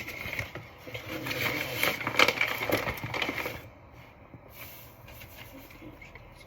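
A bag of sugar rustling and crackling as it is handled and sugar is poured from it, stopping about three and a half seconds in.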